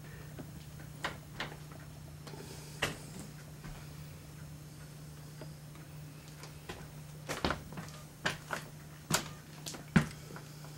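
A dozen or so sharp, irregular knocks and clicks, a few early and then louder and closer together in the last few seconds, over a steady low hum.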